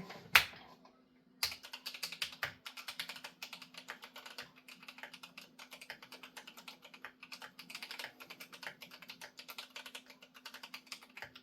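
Fast, hard typing on a GMMK Pro aluminium-cased mechanical keyboard: a single key click, a short pause, then a steady run of quick keystroke clicks starting about a second and a half in.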